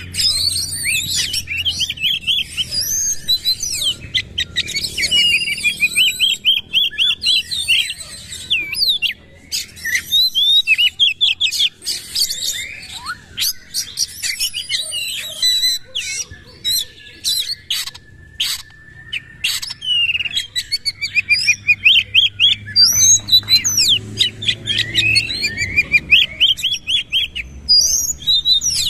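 Oriental magpie-robin singing loudly: fast runs of sharp repeated notes and rapid chirps broken by short pauses, with a long level whistle about halfway through.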